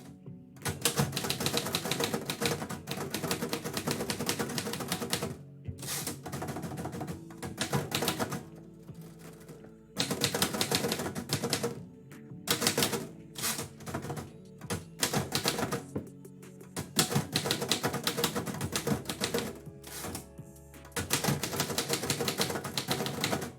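Typewriter keys clacking in fast runs with brief pauses every few seconds, as a poem is typed. Background music plays underneath.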